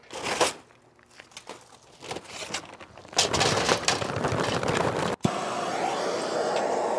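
A metal chimney starter is knocked into place, then charcoal clatters and rattles into it from a paper bag for about two seconds. Near the end a handheld gas torch runs with a steady rushing flame, lighting the charcoal at the base of the chimney.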